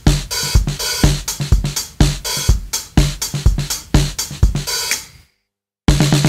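Background music with a steady electronic drum beat, about two strokes a second, and hi-hats. It cuts out completely for about half a second near the end, then resumes.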